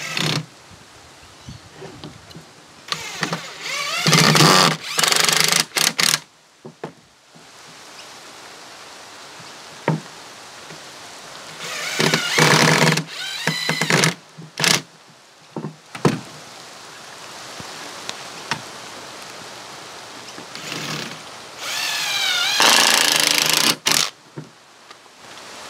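Cordless impact driver driving screws through a steel bracket into a timber block, in hammering bursts of one to two seconds with pauses between, its pitch rising and falling within some bursts. A few single sharp knocks fall in the pauses.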